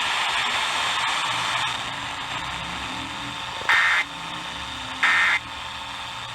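Radio static hiss, then the Emergency Alert System end-of-message data bursts: short, harsh, warbling digital tones about a second apart. Two come in the second half, and a third begins right at the end. They mark the end of the flash flood warning broadcast.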